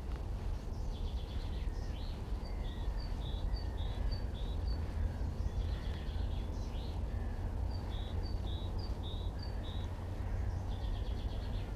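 Songbirds singing in the dawn chorus: one repeats a short high note about three times a second in two runs, and a quick trill comes near the start and again near the end. A steady low rumble runs underneath.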